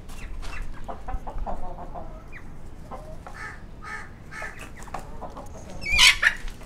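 Aseel chickens clucking in short, repeated calls, with one louder, harsher burst near the end.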